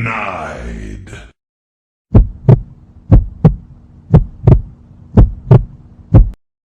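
A 'denied' sound effect, a voice saying "denied" over a falling tone, then a heartbeat sound effect: deep double thumps, lub-dub, about one pair a second, four or five times.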